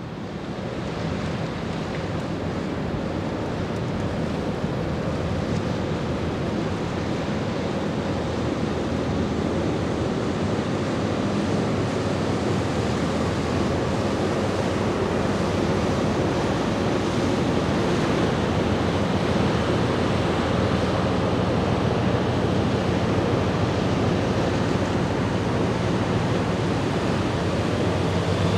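A Red Funnel high-speed catamaran passing close by: a steady rush of water and wind with a low engine drone underneath, growing gradually louder.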